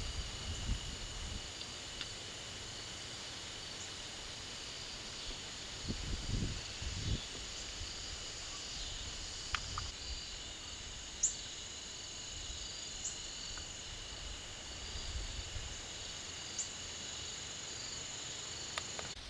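Steady chorus of crickets and other insects, trilling on a few high pitches, with a few short, sharp high chirps from a bird. A couple of low rumbles about six seconds in.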